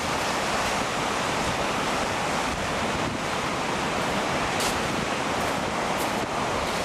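Ocean surf washing and breaking on a rocky shoreline as a steady rush of noise, with wind on the microphone.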